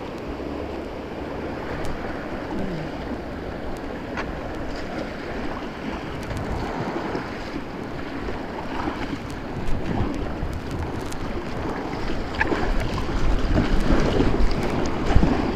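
White-water river rapids rushing around a kayak, with scattered sharp splashes and wind buffeting the microphone; the water grows louder in the last few seconds.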